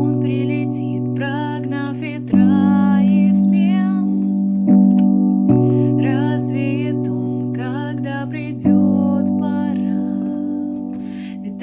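A woman singing a slow, lyrical melody over keyboard chords that are struck every few seconds and left to fade.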